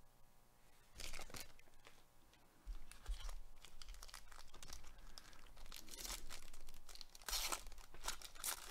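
Foil wrapper of a Panini Prizm baseball card pack crinkling and tearing as it is ripped open by hand. A short crinkle comes about a second in, then steady crackling with sharper tears around 6 and 7.5 seconds.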